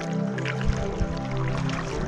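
Background music with sustained chords and a few faint clicks.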